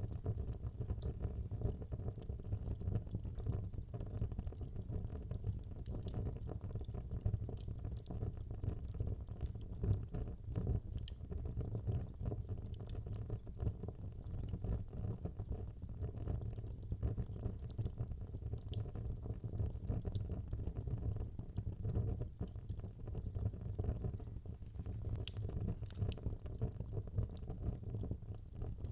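Wood logs burning in a fireplace, crackling: a steady low rumble of the flames with frequent small sharp pops and snaps scattered throughout.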